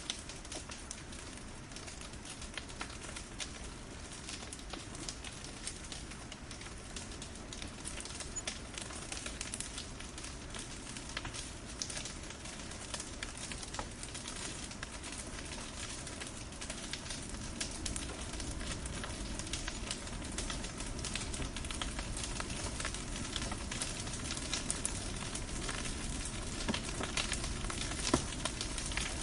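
Wood fire burning in a fireplace: a steady hiss with many small, sharp crackles and pops, a little louder in the second half.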